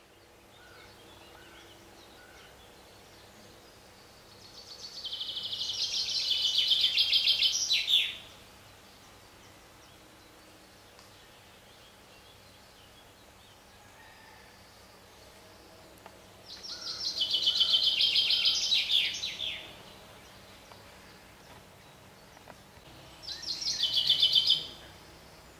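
A songbird singing the same loud, rapid run of high repeated notes three times, each song lasting a few seconds, with long pauses between, over faint steady background noise.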